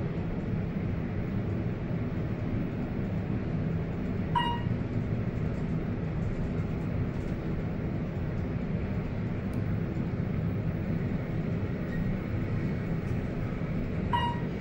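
Otis 211M elevator car travelling, with a steady low hum and rumble of the ride. A short electronic ding sounds about four seconds in and again near the end.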